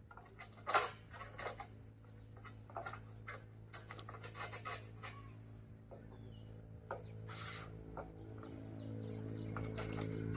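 Irregular scraping and knocking strokes of a pole-mounted oil palm harvesting sickle working at the stalk of a fruit bunch high in the palm, the bunch still stuck fast. A steady engine hum grows louder toward the end.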